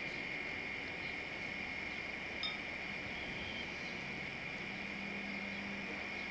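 Steady high-pitched drone of insects, with one short ringing metallic clink about two and a half seconds in. A low, steady hum comes in just past halfway.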